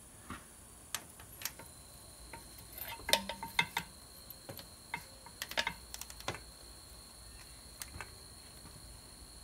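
Torque wrench and socket on the head bolts of an International DT466E diesel, making scattered metallic ratchet clicks and clinks, bunched about three seconds in and again about five and a half seconds in. The bolts are being pulled down to 150 lb-ft in the first step of the head torque sequence.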